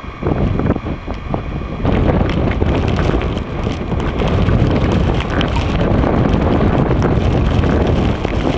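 Strong wind buffeting the microphone in a snowstorm, a heavy low rumble that gets louder about two seconds in.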